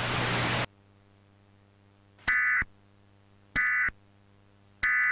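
A rising hiss of static that cuts off suddenly under a second in. Then three short Emergency Alert System end-of-message (EOM) SAME data bursts, digital two-tone squawks about a second apart, signalling the end of the alert.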